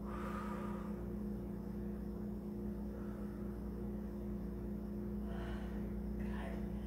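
A steady low hum held at a few fixed pitches, unchanging throughout.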